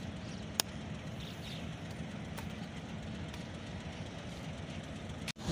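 Pakistan Railways diesel-electric locomotive engine running with a steady drone as it rolls slowly toward the platform, with a couple of sharp clicks in the first second. The sound cuts out abruptly just before the end.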